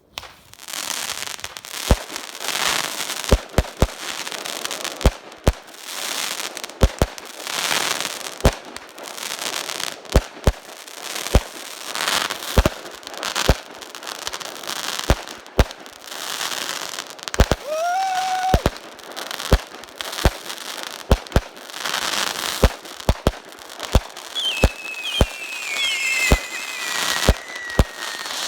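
Consumer fireworks going off in a rapid, irregular barrage: sharp bangs one or two a second over a continuous crackle. A rising whistle sounds a little past halfway, and several falling whistles come near the end.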